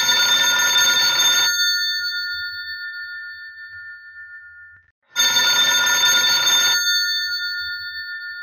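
Old-style bell telephone ringing twice, about five seconds apart. Each ring is a rapid rattling ring lasting about a second and a half, after which the bells ring on and slowly fade.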